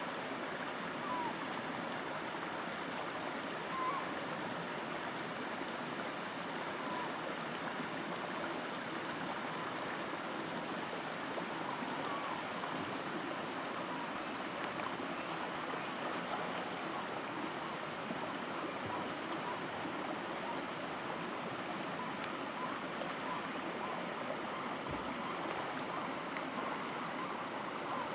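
Steady rush of a small stream running over rocks, with a few faint short high notes now and then.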